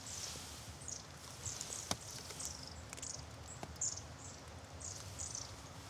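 A flock of long-tailed tits calling: many short, thin, high-pitched contact calls, scattered throughout, with a couple of sharp clicks around two and three and a half seconds in.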